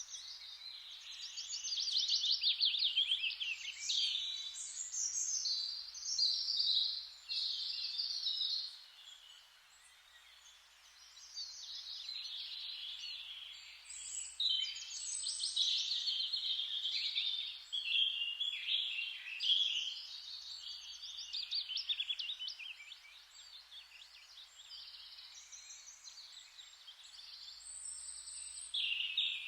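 Forest ambience: many birds chirping and singing at once in a dense, overlapping chorus that swells and eases, over a faint steady hiss.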